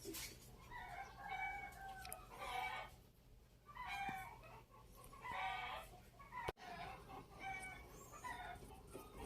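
Chickens clucking, a short call every second or so.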